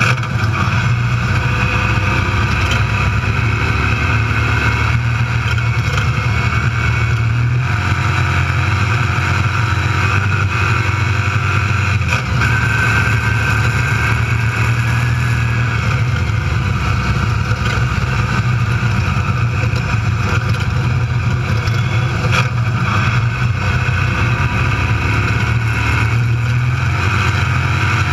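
Desert race car's engine running hard at speed, heard from inside the open cockpit, with a steady drone and road noise. There is no break from start to finish.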